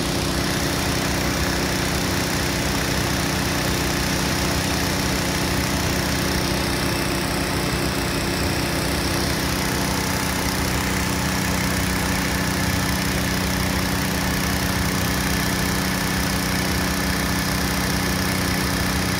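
An engine running steadily at one constant speed, a drone with no change in pitch or level.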